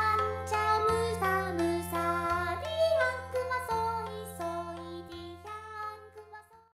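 Music with a singing voice, a melody over a steady low drone, fading out to silence near the end.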